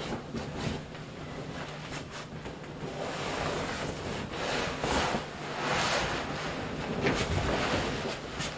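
Plastic raincoat and vinyl inflatable rustling and rubbing in uneven swells as a person clambers over an inflated pool.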